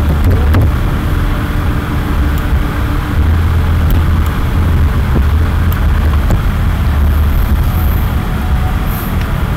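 A steady low rumble with hiss underneath, with a few faint clicks.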